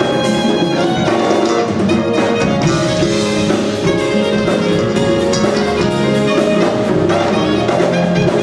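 Live smooth jazz band playing: saxophone lead over keyboards, drum kit and hand percussion.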